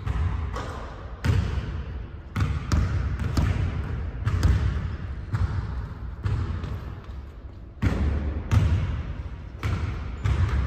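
Basketballs bouncing on a hardwood gym floor: a string of irregularly spaced thuds, each echoing in the large hall.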